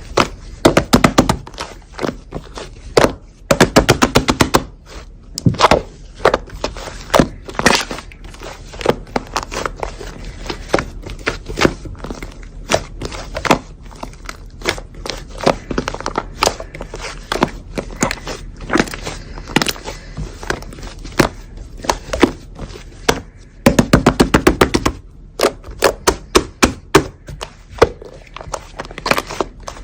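Slime being squeezed, poked and stretched by hand, with sharp pops and clicks from trapped air bubbles. Several quick runs of rapid clicking, about a second in, around three to four seconds in and near the end.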